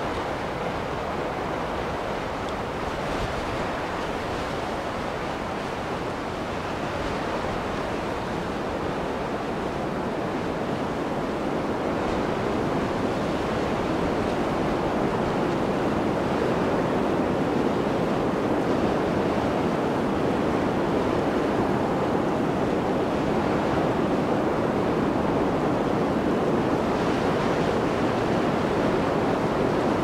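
Blizzard wind blowing as a steady rushing noise, growing a little louder about halfway through.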